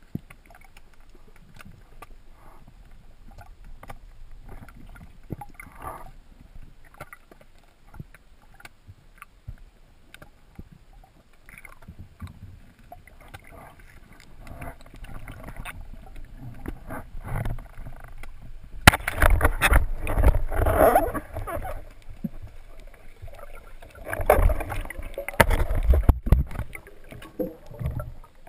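Water heard underwater while spearfishing: quiet at first with scattered faint clicks, then loud bubbling and water rushing in two stretches in the second half, as the diver comes up to the surface.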